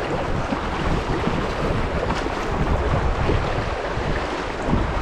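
Rushing river water with wind buffeting the microphone: a steady, loud rush with uneven low rumbling gusts.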